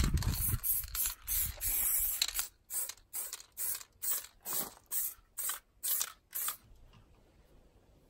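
Aerosol can of U-Pol acid etch primer spraying: a continuous hiss for about two seconds, then a run of short bursts, between two and three a second, stopping about six and a half seconds in.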